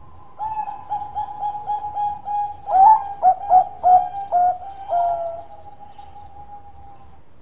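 Zebra dove (a Bangkok-bred perkutut) singing its cooing song: a run of quick, soft coos at about four a second, then about six louder, longer coos from about three seconds in, ending about five and a half seconds in.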